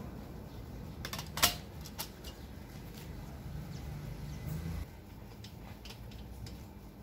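Stainless steel scissor arms of a wall-mounted retractable clothes hanger clicking and clinking as they are folded closed by hand. A cluster of clicks comes about a second in, the sharpest about a second and a half in.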